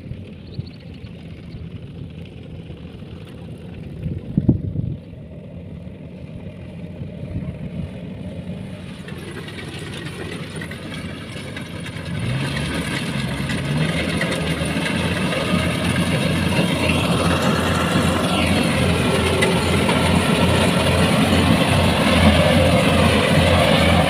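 Kubota combine harvester's engine running steadily while it cuts rice, faint at first and much louder and closer from about halfway on, with an even pulsing throb. A brief knock about four seconds in.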